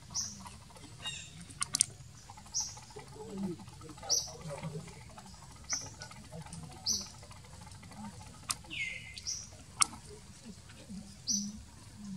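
Short, high-pitched animal squeaks repeating about every second or so, one longer, lower falling squeak near the end, mixed with a few sharp clicks.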